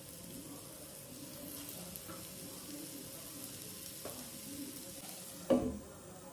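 Marinated chicken pieces sizzling softly on a hot, oil-free black iron griddle (tawa). About five and a half seconds in, a glass lid clacks down onto the pan with a brief ring.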